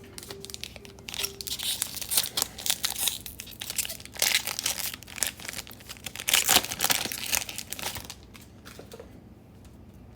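Plastic wrapper of a trading-card pack being torn open and crinkled. The crackling starts about a second in and dies down near the end.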